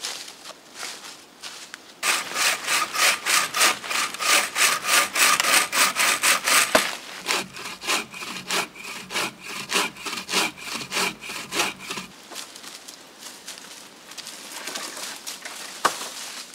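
Hand saw cutting through wood with quick, even strokes, about three a second, starting about two seconds in. The strokes turn quieter partway through, with a faint ringing from the blade, and stop a few seconds before the end.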